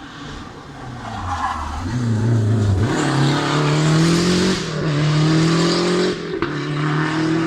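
Historic rally car accelerating hard on a special stage, getting louder from about two seconds in, its engine pitch climbing and dropping back at each of three upshifts.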